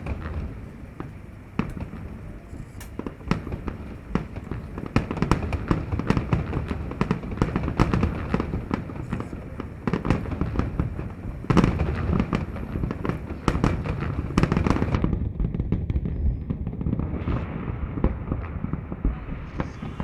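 Fireworks display: a dense barrage of bangs and crackles over a low rumble, thinning out in the last few seconds.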